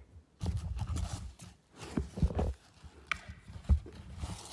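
Handling noise: irregular knocks and rustles as a pair of black suede high-heeled pumps is handled and set back into a cardboard shoe box, with one sharp knock near the end.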